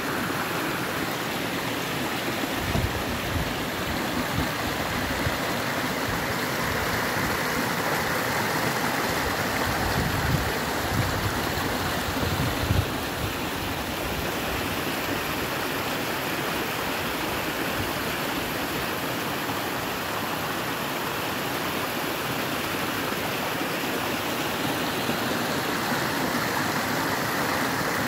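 Small stream running steadily over stones. A few brief low thumps come through in the first half, the strongest about twelve seconds in.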